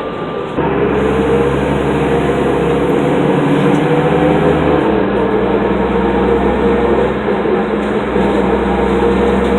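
New Flyer D40LF transit bus's diesel engine and ZF automatic transmission running, a steady drone with a whine over it. It steps up abruptly about half a second in. This bus's ZF transmission is failing and struggling to get into second and third gear.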